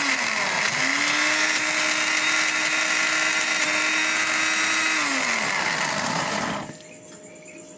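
Philips Cucina electric blender grinding dried cashew seeds in a little milk. The motor's whine sags and picks up again about half a second in, runs steady, then winds down and stops near the end.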